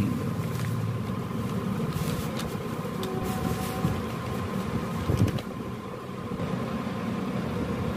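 Steady low mechanical hum of a motor running in the background, with a thin steady tone above it and a few faint short handling noises.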